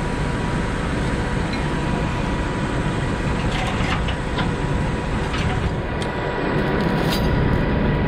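Heavy-duty wrecker tow truck's engine running steadily, with a faint steady whine over it. From about three and a half seconds in, a scatter of light clinks from chains being fastened at the underlift.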